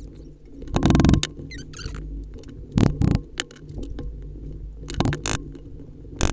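Leather wallet handled as a metal money clip is worked into its bottom fold: a few short bursts of scraping and rubbing of leather and metal, about every two seconds.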